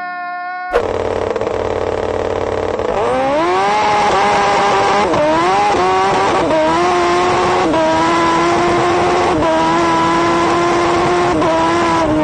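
Turbocharged Suzuki Hayabusa motorcycle engine in a golf cart at full throttle, climbing in pitch through the gears with a sharp drop at each upshift, about five shifts in all.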